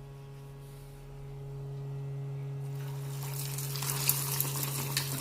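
Egg-coated beef chaps frying in hot oil: sizzling that starts about a second in, grows louder, and turns into dense crackling with sharp pops. A steady electrical hum runs underneath.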